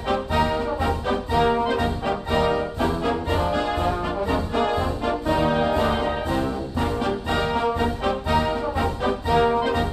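Orchestral background music led by brass, playing held chords over a steady beat.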